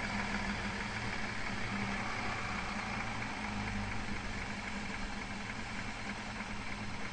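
Big Cam Cummins inline-six diesel engine running steadily at a low, idle-like speed on an engine dyno.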